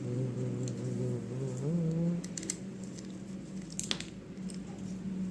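Screws being undone on a small amplifier board, with a few sharp metallic clicks and handling noise over a steady low hum that steps up in pitch about two seconds in.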